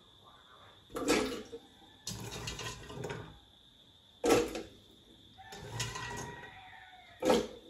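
Hands scooping chopped fresh coconut pieces out of water in a stainless steel pot, with water dripping and splashing. Three sharp clunks ring out as handfuls are dropped into the blender jar.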